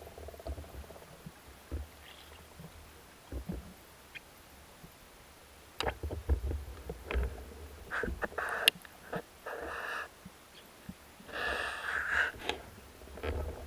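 A spearfishing diver's breathing through a snorkel, with two longer hissing breaths about eight and eleven seconds in, among scattered clicks and knocks over a low rumble.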